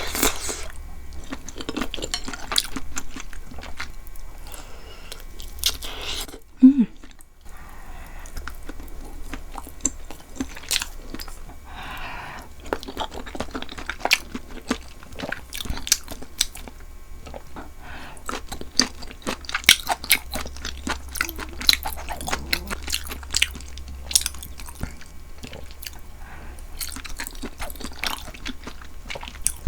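Close-miked chewing of beef tripe tteokbokki: a mouthful of chewy rice cakes and grilled beef small intestine worked steadily, with many small wet clicks and smacks.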